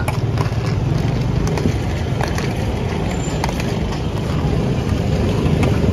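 Street ambience dominated by a steady low engine hum of passing motor traffic, with a few light clicks as a metal spoon scoops through a steel tray of fried peanuts.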